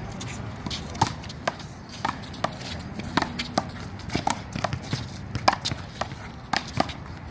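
A one-wall handball rally: a small rubber handball is slapped by bare or gloved hands and smacks off the wall and the court, a rapid, irregular run of sharp smacks, several a second.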